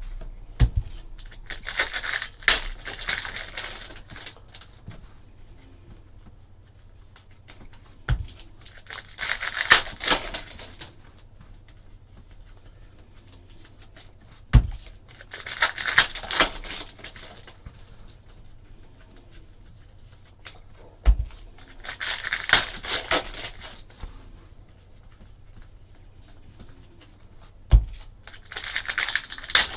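Trading cards being handled at a table: five times, about every six and a half seconds, a sharp tap as cards are set down on a stack, each followed a second or so later by a short burst of cards rustling and sliding against one another.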